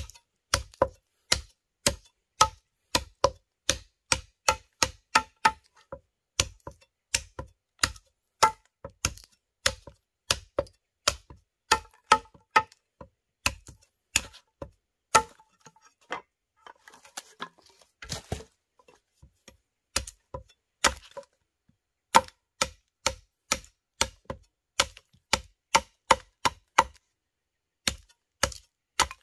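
Machete chopping at the end of an upright green wooden pole, shaping it to a point: a steady run of sharp chops, about two a second, with a brief pause about halfway through.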